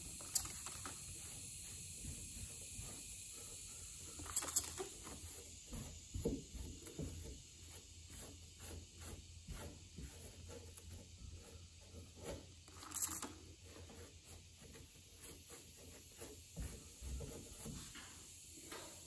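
A cloth wiping and rubbing along the edge of a fiberglass car trunk: faint, irregular swishing strokes, with a couple of sharper clicks.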